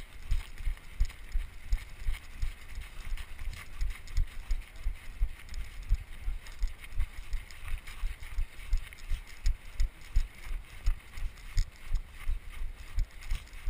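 Footsteps of a group of runners jogging on snow, with the wearer's own footstrikes jolting the body-worn camera as regular low thuds, about three a second.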